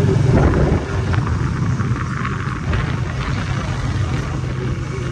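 Motorcycle engine running steadily under way, heard from the rider's seat as a constant low drone.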